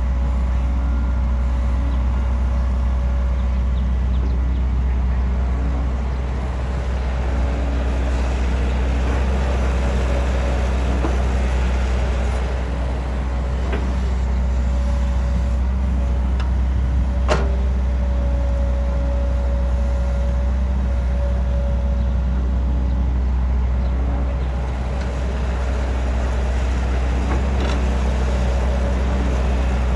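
Heavy-equipment diesel engine running steadily under load, with a single sharp metallic click about 17 seconds in.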